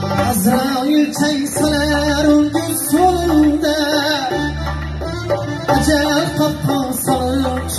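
Live Uzbek band music: a male voice singing a wavering line into a microphone over synthesizer keyboard chords and bass, with the beat of a doira frame drum.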